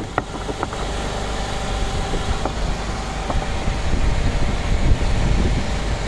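1962 Volkswagen single-cab pickup's engine running steadily at a fast idle, with a few light clicks. The idle is set too high, which drives the hydraulic cherry picker boom up too fast.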